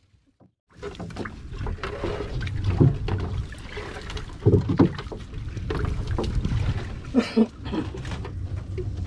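Knocks and thumps in a small open fishing boat as fish and net are handled in the hull, over a steady low rumble; it begins after a moment of silence.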